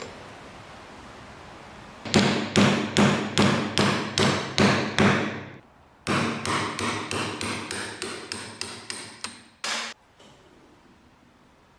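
Hammer blows on a hand-truck part, with a slight ring: a run of about nine blows, a short pause, then a quicker run of about a dozen lighter ones and one last short hit.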